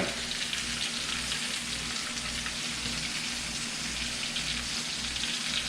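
Bacon-wrapped hot dogs and chopped onions and peppers frying, a steady sizzle with small crackles, over a steady low hum.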